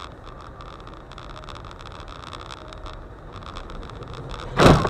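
Steady road and engine noise inside a car on a wet, snowy road, then one loud crash of a collision near the end.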